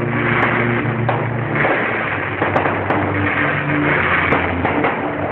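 Fireworks display: a dense, continuous crackling hiss from fountains and rising comets, with hardly any loud bangs. A low droning tone sits underneath and shifts pitch every second or so.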